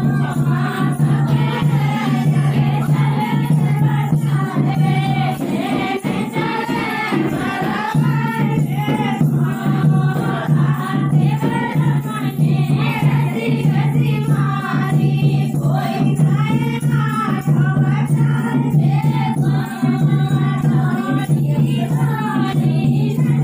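Women singing a Hindi village folk dance song (dehati geet) together, the singing running on without a break.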